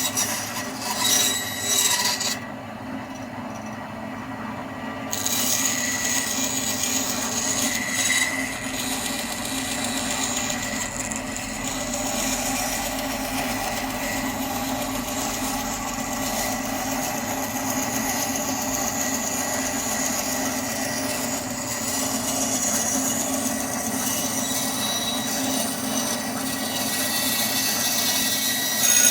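Axminster Craft AC1950B bandsaw running with a steady hum, its freshly fitted blade cutting wood.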